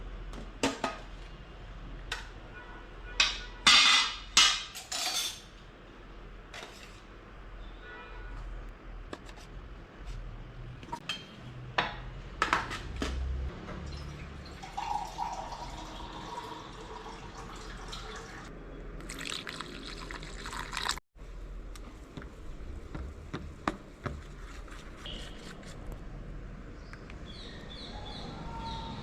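Gram-flour batter being made in a bowl: a few sharp knocks and clinks of utensils against the bowl about four seconds in, with pouring and stirring of the wet batter.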